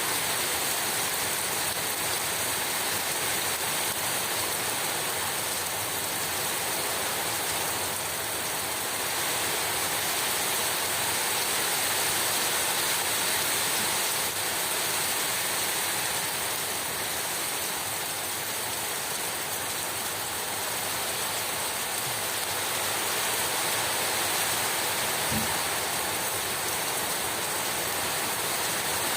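Heavy rain pouring steadily: a dense, even hiss of water that swells and eases slowly.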